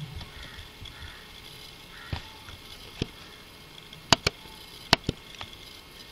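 Computer mouse clicking: six short, sharp clicks, coming in two quick pairs in the second half.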